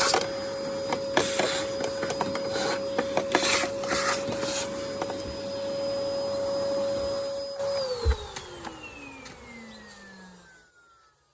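Vacuum cleaner running with a steady whine, its nozzle clicking and scraping as it sucks dirt out of a car's air filter box. About two thirds of the way in it is switched off and the motor winds down, the whine falling steadily in pitch as it fades.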